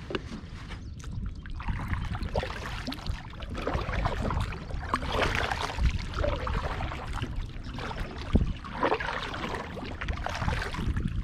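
Double-bladed kayak paddle strokes, the blades dipping and pulling through the water with a splash and trickle every two to three seconds.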